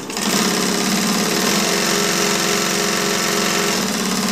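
Industrial sewing machine driven by a servo motor, running steadily as it stitches binding onto a canvas panel through a large binder attachment.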